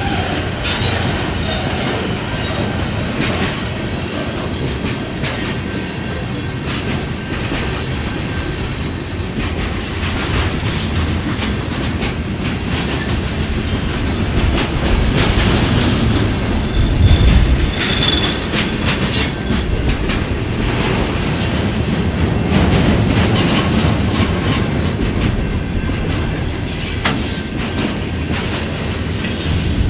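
Freight cars of a CPKC manifest train rolling past close by: a steady rumble of steel wheels on rail, broken by repeated sharp clicks and clatter as the wheelsets cross rail joints. A brief squeal comes about halfway through, and a heavy low thud a little after it.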